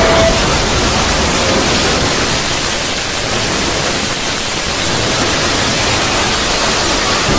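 Loud, steady static-like hiss of noise filling all pitches, with a held tone cutting off just after the start.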